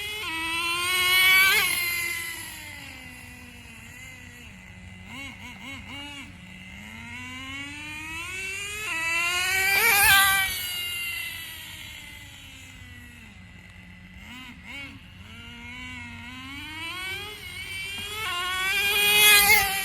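Traxxas 4-Tec RC car's .15 nitro engine running at high revs as the car makes passes, loudest three times as it comes close, its whine dropping in pitch as it goes away. Fainter revving rises and falls between the passes while the car is further off.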